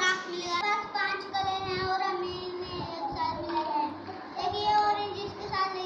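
A child singing, a voice moving between held notes.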